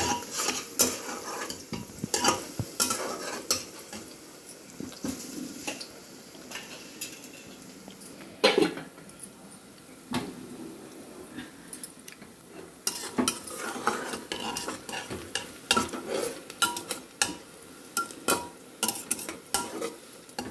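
A steel ladle stirs and scrapes sliced onions frying in oil in a pressure cooker, clinking often against the metal pot over a light sizzle. There is one louder knock about eight seconds in.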